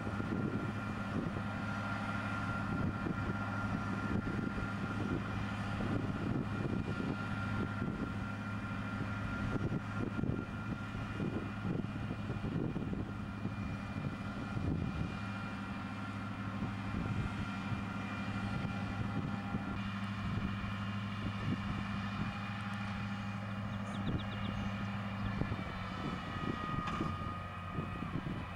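Tractor engine running steadily under load while pulling a mounted drainage tile plow, with a faint, steady high whine above the engine hum.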